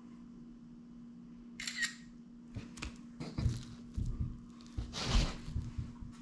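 A smartphone camera's shutter sound about one and a half seconds in, followed by scattered knocks and rubbing as the fish is handled and shifted on the plastic board, over a steady low hum.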